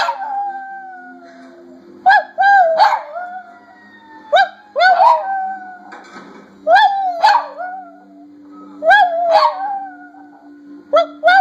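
Silky Terrier howling with her muzzle raised, in a run of short two-part 'how-howl' phrases about every two seconds: each is a couple of quick yipping notes followed by a longer howl that falls in pitch.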